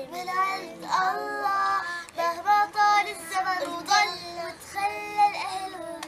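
Young girls singing a song together, their voices carrying held, melodic notes.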